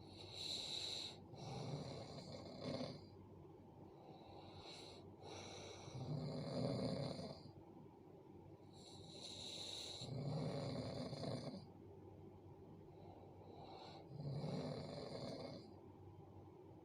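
A sleeping person snoring, a low rasping snore with a hissing breath about every four seconds.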